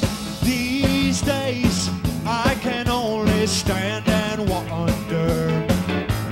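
Live rock band playing an up-tempo number, heard straight from the soundboard mix: a steady drum beat and bass under a lead melody that bends and wavers in pitch.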